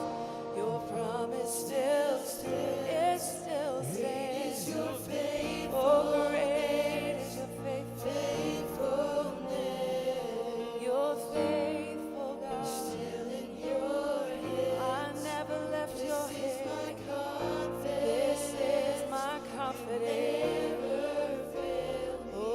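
Church worship music: voices singing together as a choir over instrumental accompaniment, with a low bass line moving note by note.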